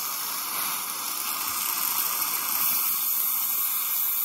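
Dental suction drawing air and water from a patient's mouth: a steady hiss.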